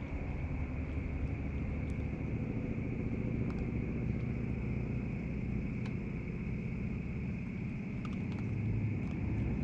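Steady low outdoor rumble with a steady high-pitched drone above it and a few faint clicks.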